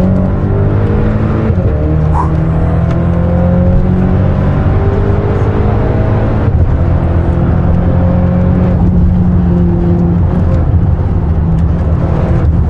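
BMW X5 M twin-turbo V8 under hard acceleration, heard from inside the cabin. Its pitch climbs steadily and drops back at each of several upshifts.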